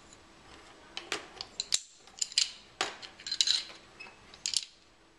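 Base-ten tens rods clicking and clattering against each other and the board as they are picked up and set down, in a quick run of sharp knocks.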